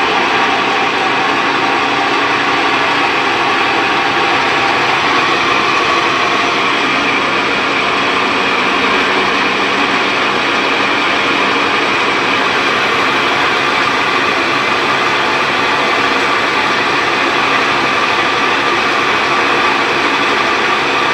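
Faulty washing machine running with a loud, steady mechanical noise that does not let up: the sign of a fault in the machine.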